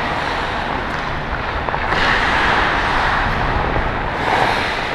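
Steady rushing hiss of skating: ice skate blades scraping and gliding on the ice, mixed with wind rushing over the microphone of a camera worn by the skater, a little louder from about two seconds in.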